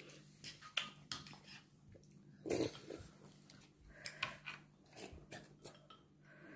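Metal spoon stirring soup in a ceramic bowl: faint, scattered clinks and scrapes, with one louder sound about two and a half seconds in.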